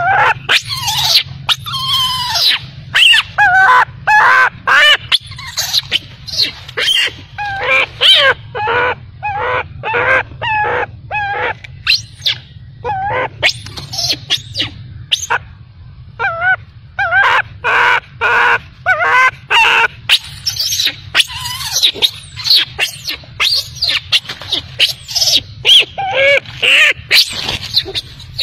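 Infant macaque crying in distress: a long run of short, shrill, wavering cries, about two a second, with brief pauses.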